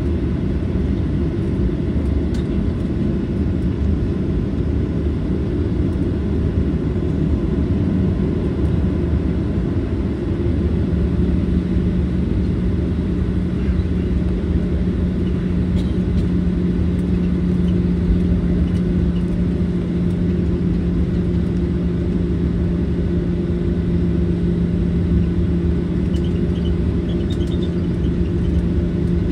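Cabin noise inside a Boeing 737-800 with its CFM56-7B turbofan engines running: a loud, steady low rumble, with a steady hum that comes up about a third of the way through.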